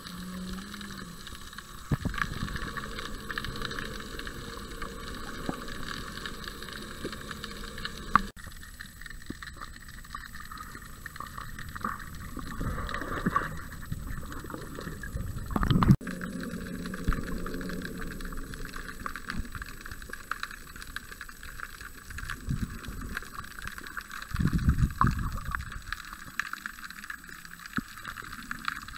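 Underwater sound picked up by a snorkeler's submerged camera: a steady wash of moving water with scattered clicks and knocks. The water noise swells loudest about 16 seconds in and again for a second or so near 25 seconds.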